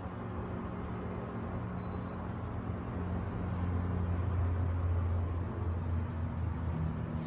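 A steady low mechanical hum over a rumble, growing a little louder about halfway through.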